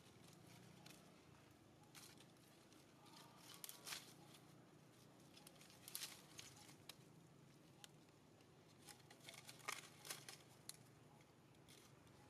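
Faint, scattered crackling and rustling of dry leaf litter as a baby macaque moves over it, a handful of soft crackles over near-silence.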